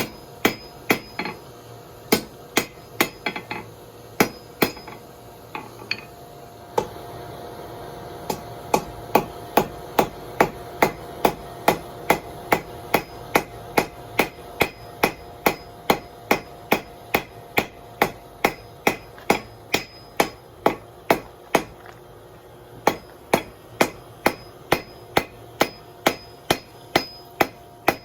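Blacksmith's hand hammer striking hot steel on an anvil: a few scattered blows, then an even beat of about two blows a second, broken by a short pause before it resumes.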